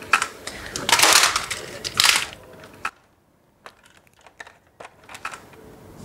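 Plastic toy guns being handled: rustling clatter with loud crackles in the first couple of seconds, then a short pause and a run of scattered sharp plastic clicks.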